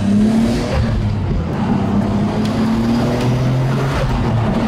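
Car engine running at a steady cruise, heard from inside the cabin with tyre and road noise, its pitch shifting slightly as the revs change.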